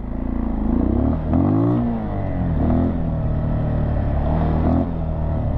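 Dirt bike engine running while riding. Its pitch climbs about a second in, drops back around two seconds in, then holds fairly steady.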